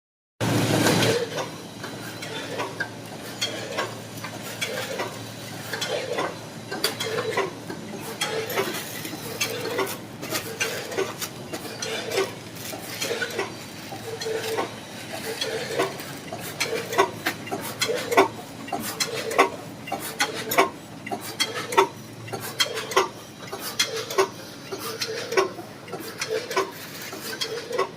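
Vertical form-fill-seal pouch packaging machine for snacks running, with a continuous run of clattering and clicks and short knocks that recur as the machine cycles.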